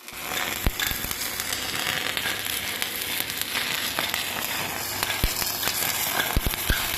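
Electric arc welding: the arc giving a steady crackling sizzle, with a few short knocks in between, most of them near the end.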